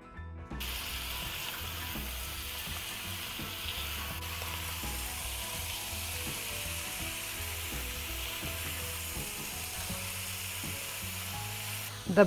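Whole shell-on shrimp frying in a hot pan with garlic and ginger, a steady sizzle that starts about half a second in.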